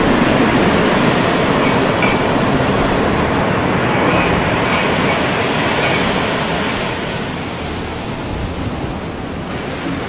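Storm wind and heavy breaking seas: a dense, steady rush of wind and surf that eases a little near the end.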